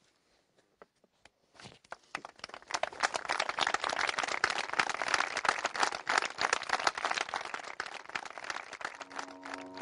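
A crowd applauding, with many hands clapping. It starts from near silence about a second and a half in and builds within a second or so to steady, dense clapping.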